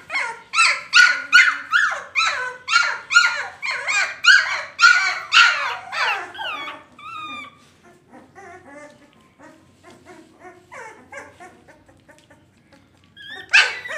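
Labrador puppies yelping and whining in a fast run of high cries, each falling in pitch, about three a second. After about six seconds they drop to softer, scattered whimpers, and one loud yelp comes near the end.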